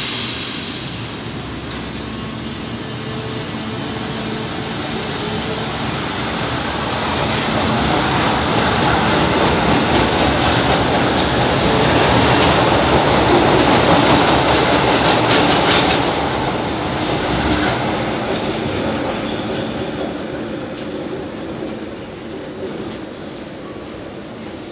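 A São Paulo Metro Line 1 train running past on elevated track, its noise building to a peak about halfway through and fading away toward the end, with a few sharp clicks near the loudest point.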